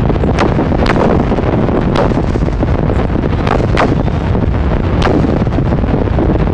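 A dense barrage of aerial firework shells bursting: a continuous low rumble of overlapping booms, with sharp cracks standing out about once a second.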